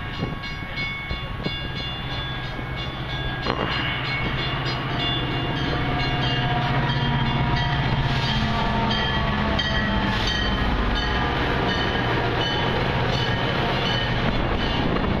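Metra commuter train with its diesel locomotive passing close by, the sound growing louder over the first several seconds and then holding steady, with held high-pitched tones over a low engine hum.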